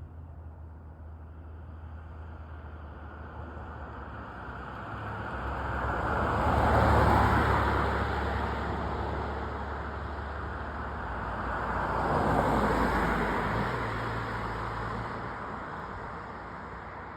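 Two road vehicles passing one after another, their tyre and engine noise swelling and fading, the first about seven seconds in and the second about five seconds later, over a low steady hum.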